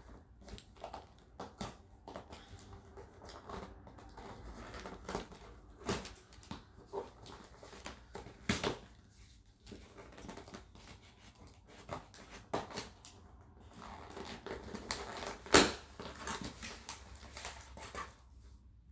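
Scissors cutting open a small cardboard shipping box, then the box and its packing being handled: scattered scrapes, crinkles and clicks with a few sharp knocks, the loudest about three seconds before the end.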